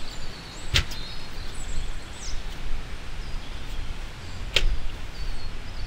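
A fist banging once on a glass door about a second in, then a steady outdoor background with faint high chirps and one more sharp knock past four seconds.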